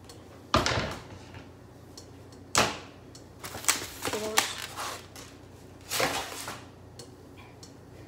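A cutting board and kitchen knife being set down and handled on a kitchen counter: a sharp knock about half a second in, another a couple of seconds later, a run of smaller clatters around four seconds, and a last longer clatter about six seconds in.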